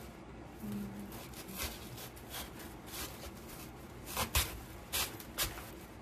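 Handling sounds as artificial greenery is pushed into a floral-foam box: light rustling with scattered clicks and knocks, several sharper knocks coming close together in the last two seconds.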